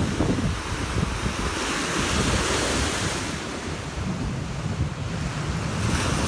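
Small Lake Erie waves breaking and washing up over a sandy shore, the hiss of the surf swelling about two seconds in and again near the end, with wind buffeting the microphone.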